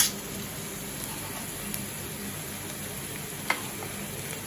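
Steady sizzling of onion and ginger-garlic paste frying in a pan on a gas stove. A metal spoon clinks sharply at the start and again more lightly about three and a half seconds in, as salt is spooned into the rice pot.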